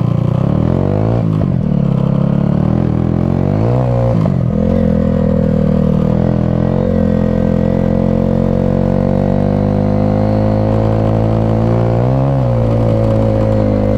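Small motorbike engine running under load, pulling up a snowy slope at low, steady speed. The revs dip and pick up again briefly about a second in, about four seconds in and near the end, and climb slowly in between.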